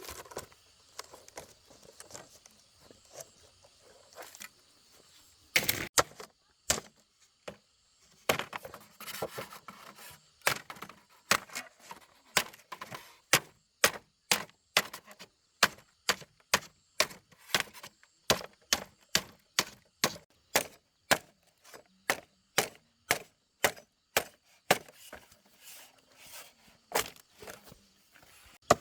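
Repeated sharp blows of a hand tool on wood or bamboo. A few scattered strikes come first, then a steady run of about two blows a second.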